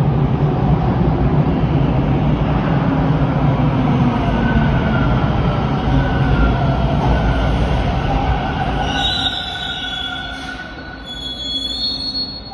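TTC Bombardier T1 subway train pulling into the station: a heavy rumble of wheels on the track, with a whine rising over it. In the last few seconds the rumble eases as the train slows, and high-pitched wheel and brake squeals come in.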